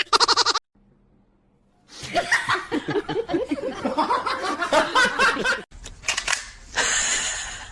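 A person laughing in a quick run of short bursts lasting a few seconds, starting after a brief silence, followed by a short hiss near the end.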